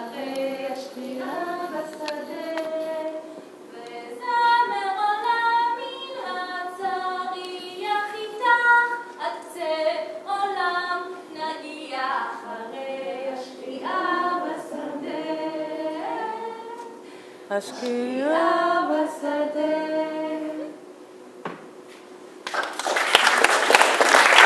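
A woman singing a melody into a microphone, her notes held and sliding between pitches. About 23 seconds in, the audience breaks into applause.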